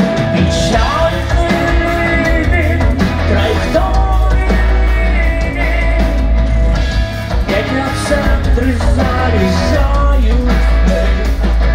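A live rock band playing loudly: a singer over electric guitar, bass guitar and drums, with a heavy bass line underneath.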